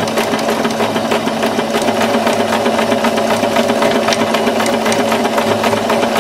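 Electric sewing machine running steadily, stitching a seam through fabric. A fast, even needle rhythm rides over a steady motor hum.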